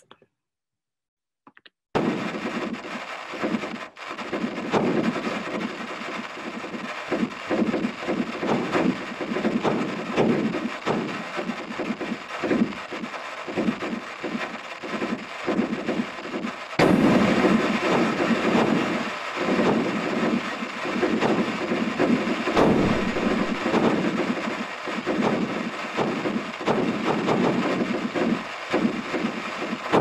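Earthquake recordings from California sped up into audible sound: a dense crackle of pops and rumbling that starts about two seconds in and grows louder and deeper about halfway through.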